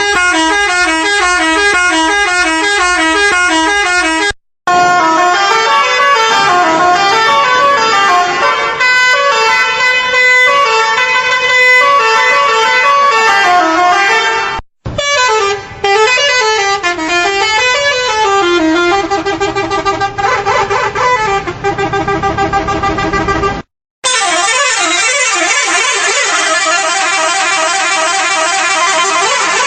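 Sand truck's multi-tone telolet horn playing fast, warbling tunes of several quickly alternating pitches, loud throughout. It is broken three times by abrupt cuts of a fraction of a second.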